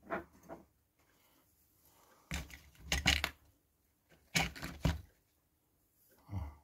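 Small handling noises at a workbench: four short clusters of clicks and taps, with quiet gaps between them.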